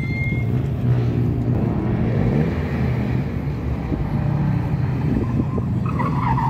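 Car engine running steadily, its revs rising and falling slightly a few times.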